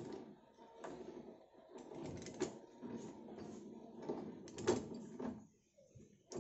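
Manual ratchet pipe die stock being backed off a freshly threaded 1/2-inch iron pipe: metal scraping of the dies on the thread and clicking of the ratchet handle, with sharper knocks about two and a half and four and a half seconds in.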